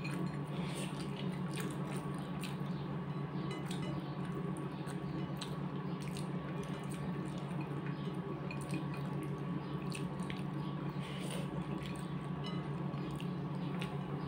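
Fingers mixing and scooping rice and curry on china plates: soft, scattered small clicks and squishes over a steady low hum.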